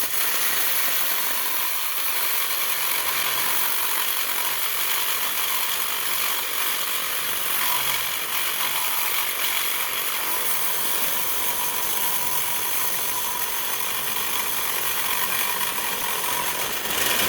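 Cordless DeWalt reciprocating saw (sawzall) cutting through a steel exhaust pipe. It gives a steady, unbroken rasp, mostly high in pitch.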